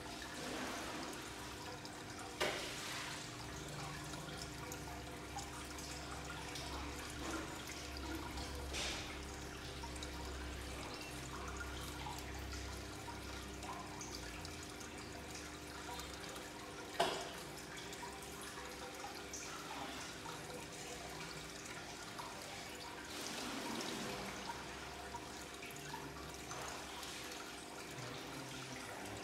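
Aquarium water bubbling and trickling from the aeration and filter over a faint steady hum, with a couple of sharp splashes or knocks, a small one early and a louder one a little past halfway, as fish take food at the surface.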